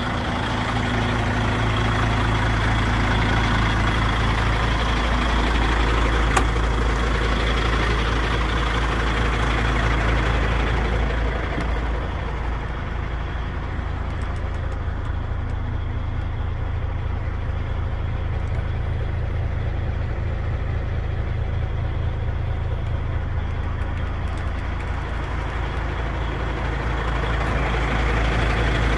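DAF XF 95.430's 12.6-litre straight-six diesel idling steadily, a low even rumble. A single sharp click comes about six seconds in. For a stretch in the middle the sound is duller, heard from inside the cab.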